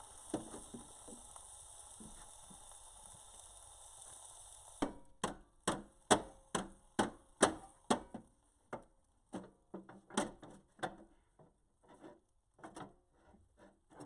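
A steady hiss that stops about five seconds in, followed by a run of sharp hammer blows on metal, about two a second at first, then thinning out to scattered taps.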